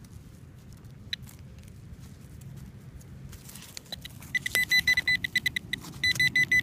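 Handheld metal-detecting pinpointer beeping rapidly and loudly, about eight high beeps a second, starting about four seconds in with a brief break near the end. It is sounding off on a metal target, the buried Minié ball still in the hole. Before it starts there is only faint handling noise and a click.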